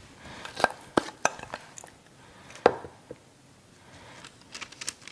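A spoon clinking and scraping against a baking tray and bowl while crumb topping is spread and pressed onto fish fillets: a few scattered sharp clicks with softer scraping between.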